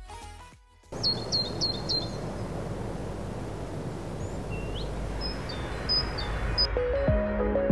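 Outdoor ambience: a steady background hiss with small birds chirping, four quick chirps about a second in, then scattered calls, one rising. Music comes in near the end.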